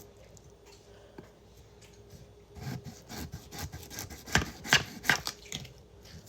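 A run of irregular scraping and rubbing strokes starts a couple of seconds in. Three sharp, louder strokes come close together near the middle, then it tails off.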